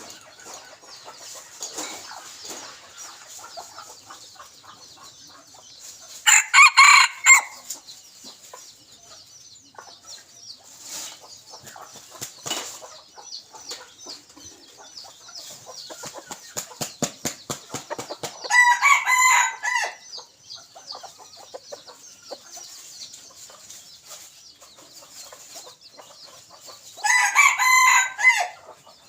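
A junglefowl cock, a decoy bird, crows three times, each crow lasting about a second and a half, roughly ten seconds apart. Shortly before the second crow comes a fast, even run of short sounds. A steady high hiss sits underneath.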